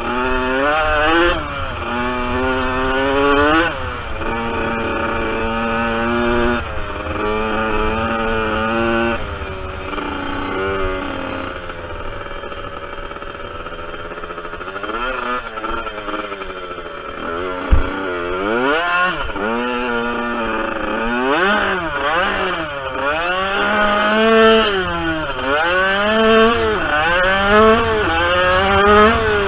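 Kawasaki KX65's small two-stroke single-cylinder engine revving hard as the dirt bike is ridden, its pitch climbing through each gear and dropping as the throttle is eased or it shifts, with wind rumble on the microphone. A sharp thump about two-thirds of the way through.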